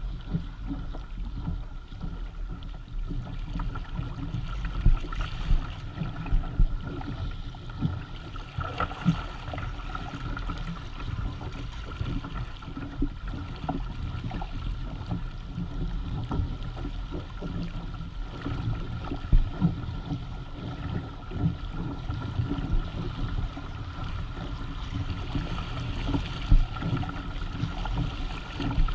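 Water rushing and slapping irregularly against the hull of a Hobie Tandem Island sailing kayak under way, with wind rumbling on the microphone.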